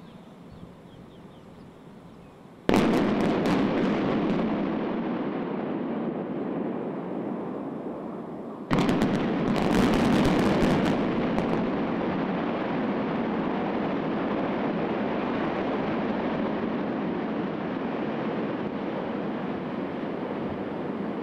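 Building-implosion demolition charges going off: a first volley of sharp blasts about three seconds in, followed by a rolling rumble that slowly fades. A second, longer volley of cracks starts about nine seconds in and runs for about two seconds, then gives way to a long, steady rumble as the power-plant structure collapses.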